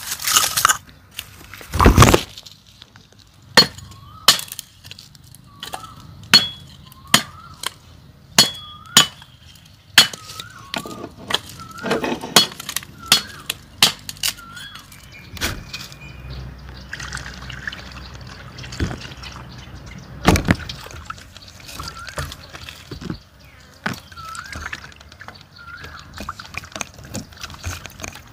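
A string of sharp clicks and knocks, two of them loud, about two seconds in and again about twenty seconds in. Under them, a bird's short wavering chirp repeats every second or so.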